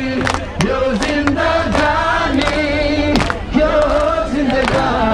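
A large crowd singing together in unison, holding long notes that rise and fall, with a chant-like, choir-like sound.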